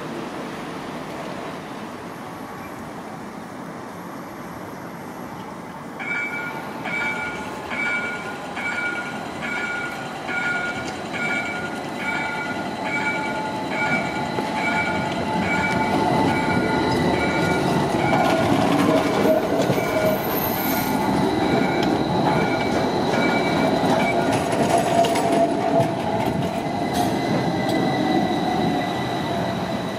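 A train comes up and runs past, the rolling noise growing louder partway through, with a wavering high wheel squeal in the second half. For most of that time an electronic warning beep repeats about twice a second, then stops while the train is still passing.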